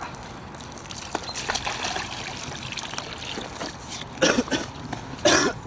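Shallow lake water sloshing and trickling as a carp weigh sling is dipped into it and feet wade through the shallows, with two louder splashes near the end.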